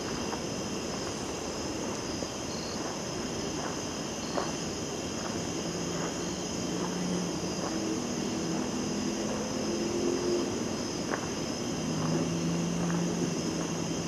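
Steady, high-pitched chorus of night insects such as crickets, over a low, steady distant engine drone. Faint footsteps on a dirt path tick about once a second.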